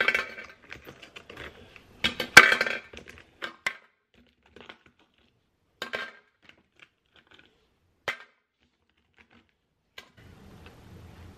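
Round ice cubes dropped into a plastic drinking bottle, clattering and clinking: two loud clatters in the first three seconds, then scattered lighter clinks, the last about ten seconds in.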